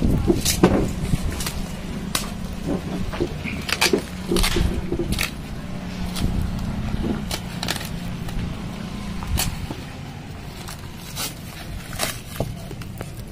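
Plastic wrapping on a parcel crinkling and crackling in scattered sharp crackles as hands handle it and start to open it, over a low steady background rumble.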